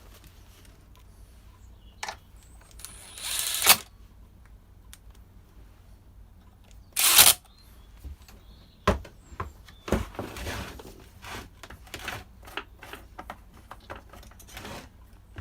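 Parts and tools being handled on a workbench: scattered clicks and knocks, with two short, louder noisy bursts about three and seven seconds in.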